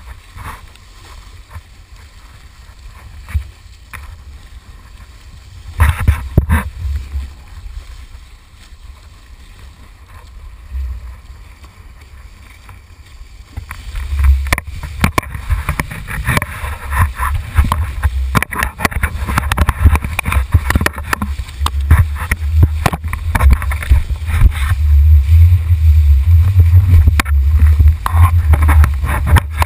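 Wind rumbling on a pole-mounted action camera's microphone, with water splashing and spraying off a kiteboard as it skims the chop. Quieter at first, then much louder and busier from about halfway through as the board picks up spray.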